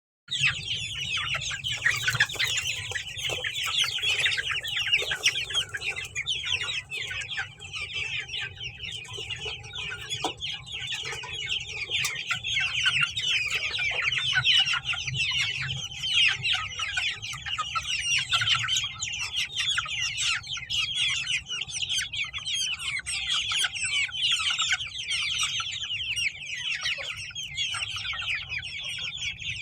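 A flock of Aseel and desi chickens clucking and peeping without pause, many birds calling over one another, over a steady low hum.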